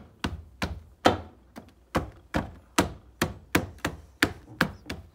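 Open hand repeatedly tapping an Audi A3 8P's plastic rear light cluster to push it home into the body, a run of sharp knocks about two or three a second.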